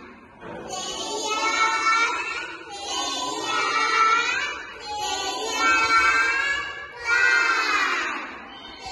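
A song sung by a high, child-like voice in four phrases of about two seconds each, each phrase swelling and fading.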